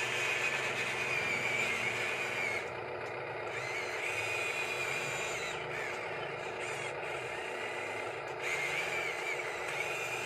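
Huina RC excavator's electric drive motors and gearboxes whining as it crawls forward on its tracks, the pitch wavering with the throttle. The whine is louder at the start and end and eases off for a few seconds in the middle.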